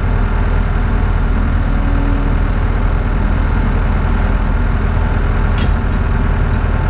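Skid steer engine running steadily, with a short click about five and a half seconds in.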